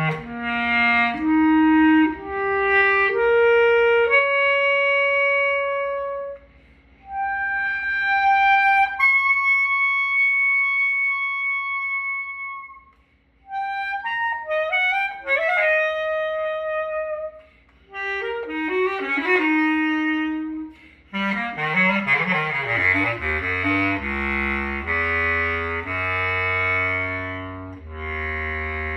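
Solo bass clarinet playing a lyrical excerpt: a stepwise rising line, a long held high note, then quick runs. Near the end it sweeps rapidly down into the instrument's low register and carries on with low notes.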